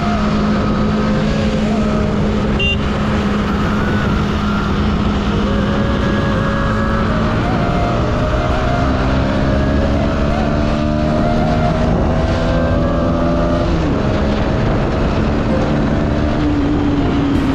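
Motorcycle at road speed heard from the rider's seat: a steady engine hum whose pitch climbs slowly, drops once and picks up again near the end, over a heavy low rush of wind.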